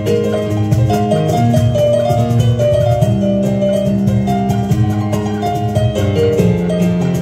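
A gugak ensemble playing a piece of music: a melody of held notes moving over a steady bass line.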